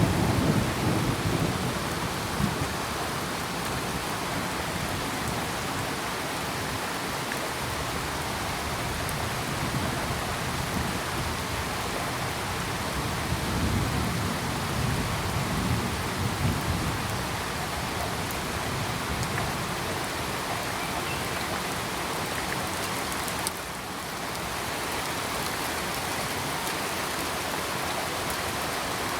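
Steady heavy rain falling, with low rolls of thunder rumbling under it at the start and again about halfway through.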